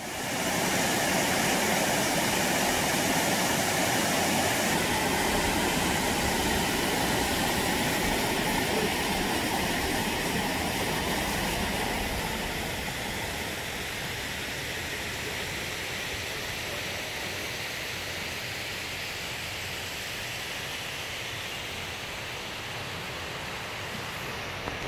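Small waterfall cascading over flat rock ledges: a steady rush of falling water, somewhat softer after about twelve seconds.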